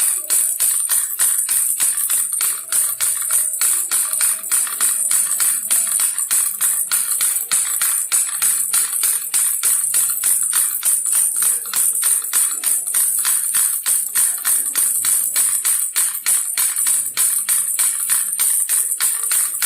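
Baby's toy rattle shaken steadily, about four shakes a second, each shake a bright jingling rattle.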